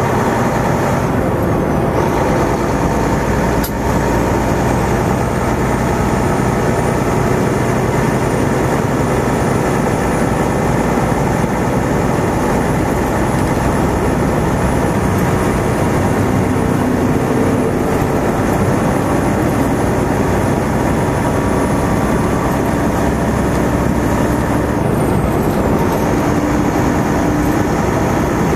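Semi truck on the road: steady engine drone and road noise heard from the cab while driving.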